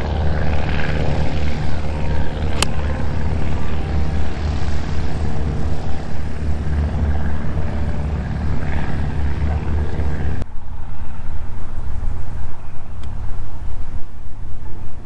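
A pitching wedge strikes a golf ball once, a sharp click about two and a half seconds in, over a steady low rumble of wind buffeting the microphone. The rumble drops away abruptly about ten seconds in.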